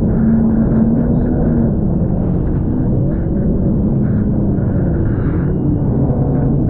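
Jet ski engine running at speed as the craft rides through choppy water, its dull, muffled drone wavering in pitch, mixed with a steady rush of water and wind.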